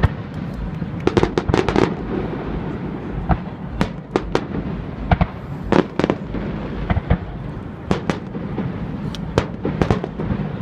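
Aerial fireworks bursting: many sharp cracks and bangs, some in quick clusters of several at once, over a steady low rumble.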